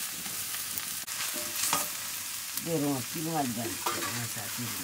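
Green vegetables sizzling as they fry in a black wok, stirred with a metal spatula. A run of about five short calls, each falling in pitch, comes a little past halfway.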